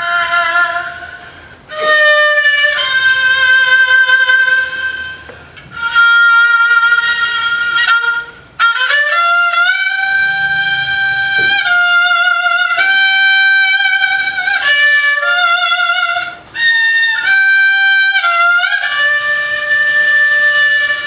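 Haegeum, the Korean two-string bowed fiddle, played solo: long held notes with a wavering vibrato and sliding bends in pitch, including a rising glide about nine seconds in. The phrases are broken by a few short pauses.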